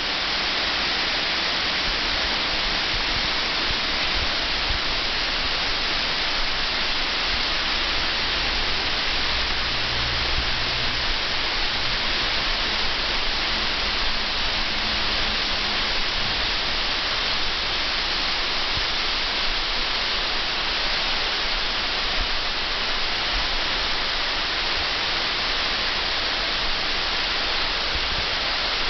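Water cascading down a tall wall into a pool: a steady rushing hiss, with irregular low rumbling underneath.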